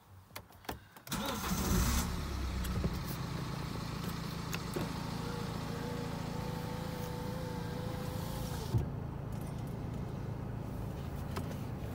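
BMW X3 20d's 2.0-litre four-cylinder turbodiesel starting about a second in, then settling into a steady idle.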